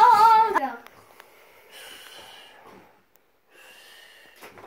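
A child's loud, wavering sung note that breaks off under a second in, followed by two much quieter breathy vocal sounds.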